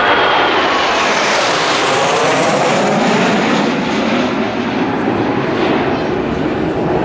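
Formation of Blue Impulse Kawasaki T-4 twin-turbofan jets flying past, a loud steady jet roar whose high hiss is sharpest about two seconds in and then dulls as the aircraft move away.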